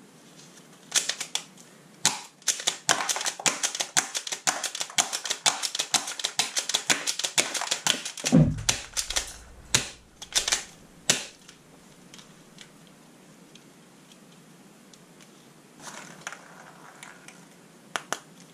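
Plastic toy guns clicking and clacking in a rapid, irregular run of sharp clicks for about ten seconds, with a single dull thump about eight seconds in, then only a few scattered clicks.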